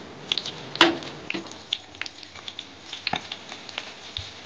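Chopped onions frying in hot oil in a kadai: a soft sizzle with many small, irregular crackles and pops, and one sharp knock about a second in.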